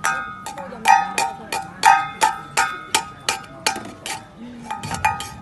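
A small metal bell struck or shaken over and over, giving short ringing dings about three to four times a second in an irregular rhythm.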